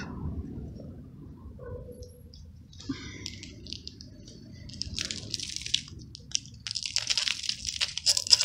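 Kitten crunching and chewing food: a run of quick crackly bites that grows denser and louder from about five seconds in.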